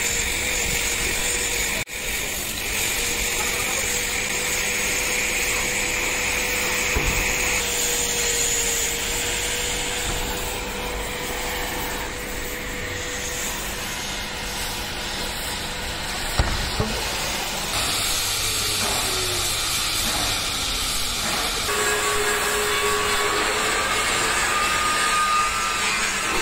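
Oxy-fuel cutting torch hissing steadily as it cuts through a steel truck chassis rail.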